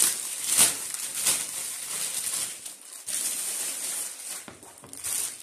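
Thin clear plastic bag crinkling and rustling as a case is pulled out of it, with the sharpest crackles about half a second and just over a second in.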